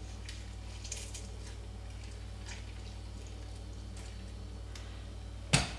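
Half a lemon squeezed by hand over a jar of chickpeas: faint, soft squishing and small ticks over a steady low hum. A sharp knock comes near the end.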